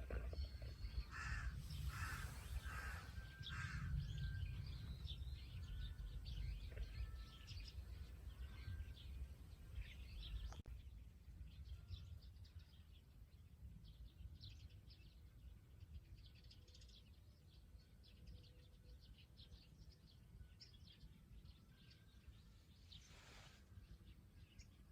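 Faint outdoor birdsong: many short bird chirps and calls, busiest in the first half and thinning out after about halfway, over a steady low background rumble.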